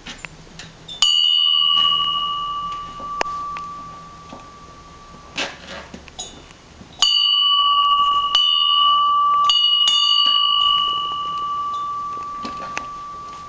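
A small bell rung by a pet: one strike about a second in, then a quick run of further strikes from about seven to ten seconds in. Each rings with a clear, high, steady tone that slowly dies away.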